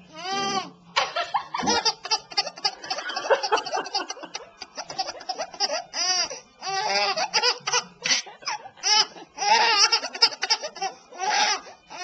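A seven-month-old baby laughing hard, in repeated high-pitched squealing laughs and short giggles with brief pauses between bouts.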